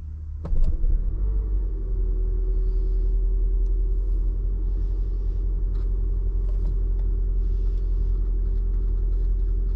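A 2008 Toyota Camry Hybrid running: a click about half a second in, then a steady low rumble with a steady hum over it.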